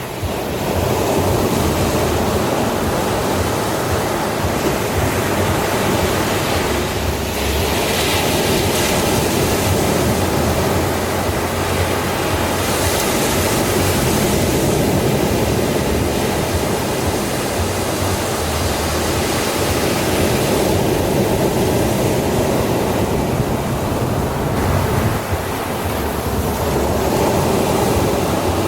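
Ocean waves breaking and washing onto a sandy shore: a continuous rush of surf, swelling into brighter hissing washes about eight and thirteen seconds in.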